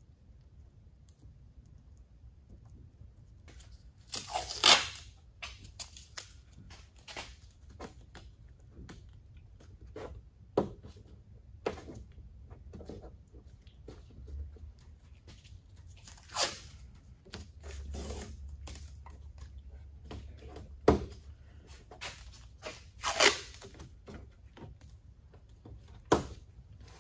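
Strips of painter's tape pulled off the roll with a rasping tear several times, between small clicks and knocks of hands handling the tape and pressing a freshly glued rubber trunk seal in place.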